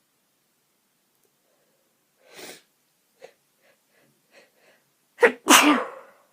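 A woman's sneeze near the end, loud and explosive, following a sharp intake of breath and several small catching breaths as it builds up, part of a sneezing fit.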